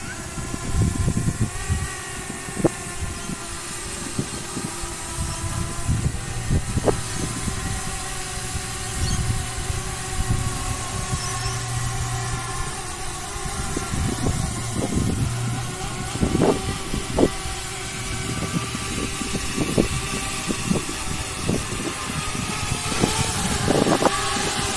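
DJI Mavic Mini drone's propellers buzzing steadily in flight, a whine of several tones that drift slightly in pitch. Gusts of wind knock on the microphone.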